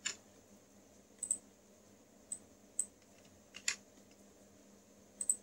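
Scattered, separate key presses on a computer keyboard, some of them in quick pairs, over a faint steady background hum.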